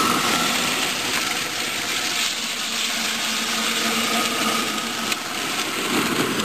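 24-volt Power Wheels Jeep ride-on toy driving in circles on asphalt: a steady whine from its electric drive motors and gearboxes under the rough rolling noise of its hard plastic wheels on the pavement.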